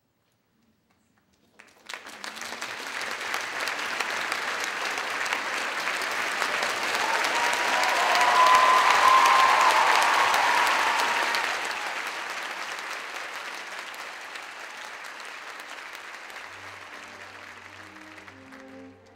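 Theatre audience applauding: it breaks out suddenly about two seconds in, builds to a peak in the middle and slowly dies away, as string music begins faintly near the end.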